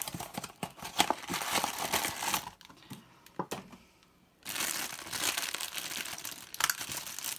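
Cardboard blind box being handled and opened with scattered clicks and crackles. After a brief lull, about four and a half seconds in, a thin black plastic bag is crinkled and torn open by hand.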